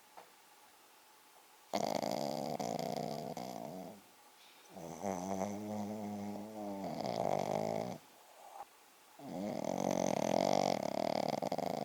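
Pekingese dog snoring loudly in its sleep: three long snores, each two to three seconds, with short quiet breaths between them.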